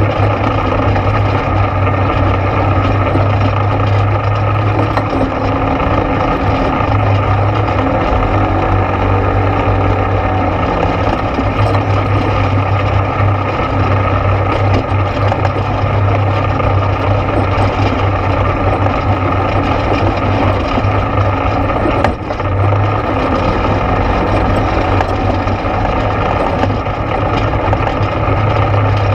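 ATV engine running steadily under way on a trail, with a constant low drone. One brief knock about three-quarters of the way through.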